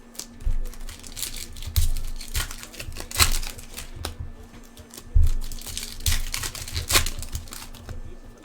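Foil trading-card pack wrappers crinkling and tearing open as cards are handled, in irregular rustles with soft knocks of cards and boxes on a table.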